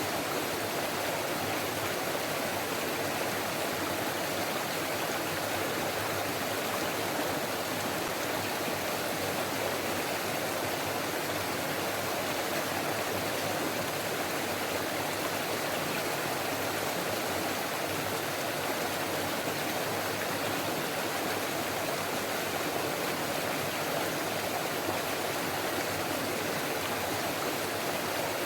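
Forest stream flowing over rocks: a steady, unbroken rush of babbling water.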